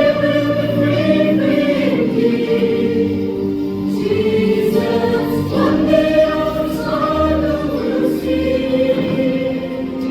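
Choir singing a sacred anthem in harmony, in long held notes and phrases, with a low accompaniment underneath.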